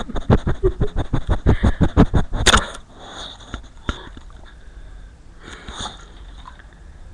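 A dog sniffing hard right at the microphone: a quick run of short sniffs, about five a second, for the first two and a half seconds, ending in a sharper puff. Then only a few faint snuffles.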